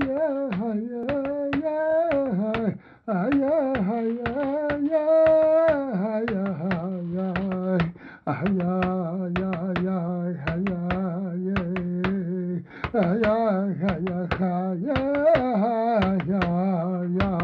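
Music: a voice singing a slow, held, wavering chant, pausing briefly three times, with sharp taps or beats running through it.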